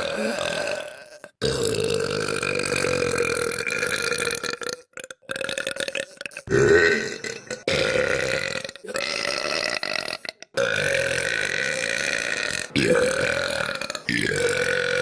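A girl's long, drawn-out burps, one after another: about seven or eight, each lasting one to three seconds at a fairly steady pitch, separated by brief gaps.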